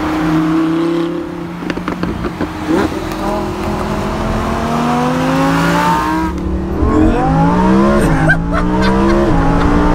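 Lamborghini Huracán's 5.2-litre V10 accelerating, its note climbing in pitch and dropping back at each upshift, three climbs in a row from about two seconds in.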